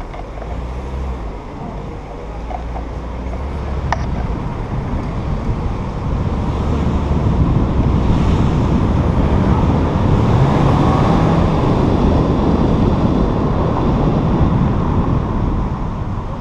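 Motorcycle engine running as the bike rides off and gathers speed, with wind rushing over the camera that grows much louder once it is under way and eases near the end. A single short click about four seconds in.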